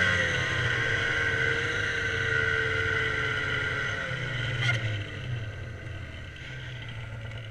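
Snowmobile engine under the rider, its pitch dropping and its sound fading as the sled slows to a stop, settling to a lower, quieter run in the second half. A brief click a little under five seconds in.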